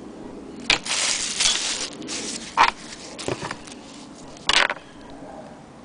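Handling noise: a plastic bag rustling and crinkling, with a few sharp knocks from loose hand-crank sewing machine parts. The loudest knocks come about two and a half seconds in and again near four and a half seconds.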